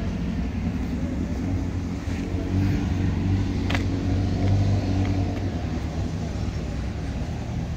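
A car engine running steadily at idle, with a sharp click about halfway through.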